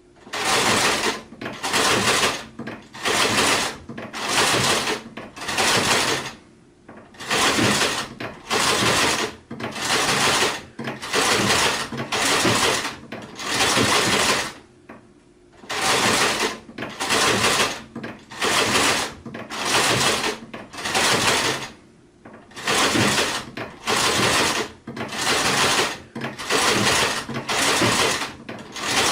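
Sewing machine stitching in short runs of under a second each, about one per second, with a longer pause after every six or seven runs.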